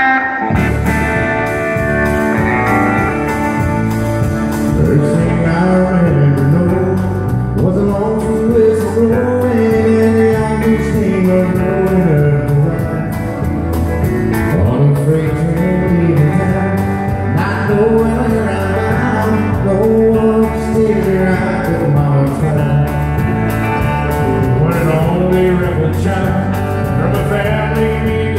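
Live country band playing, with acoustic and electric guitars, pedal steel guitar, keyboard and drums, and a man singing.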